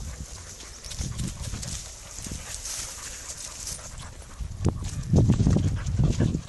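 Several dogs moving about close by on a sandy woodland track, with low rumbling noise: briefly about a second in, then louder from near five seconds.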